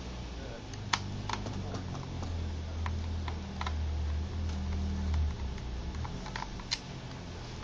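Scattered small clicks and taps of a screwdriver and screws on a laptop's plastic case as the screen-bezel screws are taken out, with a low hum underneath.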